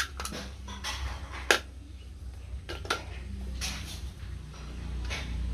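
Small metal parts clinking, tapping and scraping as they are handled, with a few sharp clicks, the loudest about a second and a half in, over a steady low hum.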